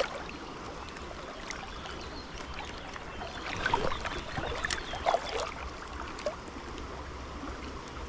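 Fast river current rushing and lapping around a wading angler, with a stretch of louder, irregular splashing in the middle.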